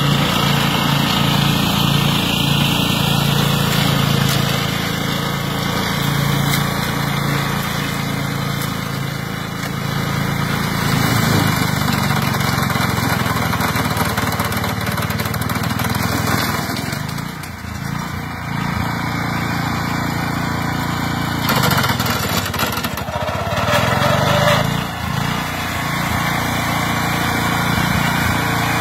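Engine-driven flail mower running steadily under load, its engine note sagging and recovering twice as the flail shaft bites in.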